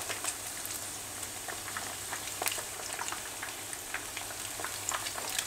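Chicken wings deep-frying in hot palm oil: a steady sizzle with scattered crackling pops.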